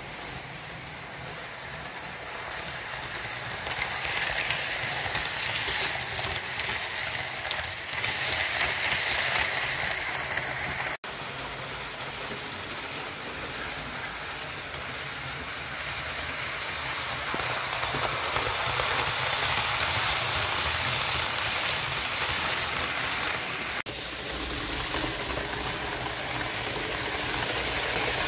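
Model trains running on the layout: a rolling, rattling whirr of wheels on track and small motors, swelling twice as trains pass close, with brief abrupt breaks about 11 and 24 seconds in.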